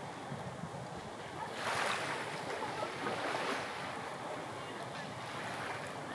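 Sea surf washing in, with one wave swelling up about a second and a half in and dying away over the next two seconds.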